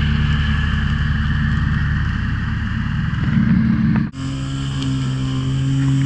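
A lawn mower's small engine running steadily. About four seconds in the sound breaks off abruptly, then picks up again as a steadier, even hum.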